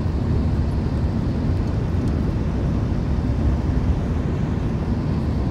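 A car driving at road speed, heard from inside the cabin: a steady low rumble of tyre and road noise with the engine under it.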